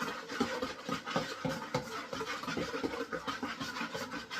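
A spoon scraping around a mixing bowl, stirring yeast, salt and warm water in quick, irregular strokes.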